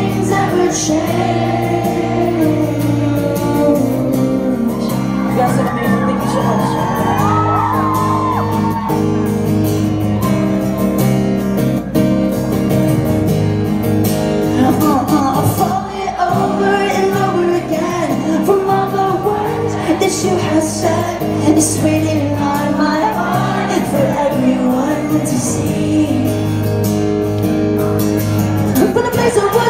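Live acoustic performance: an acoustic guitar accompanying a lead singer, with the echo of a large hall and occasional shouts from the audience.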